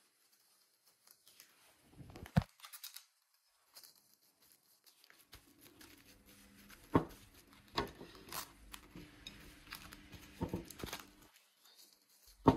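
Plastic cling film crinkling and rustling as it is pulled from its roll, torn off and pressed by hand over a bowl, starting about two seconds in, with a few sharp clicks among the rustles.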